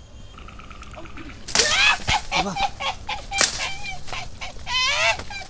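Animal calls: a burst of loud, overlapping calls, each falling in pitch, repeated many times, after a short faint steady tone.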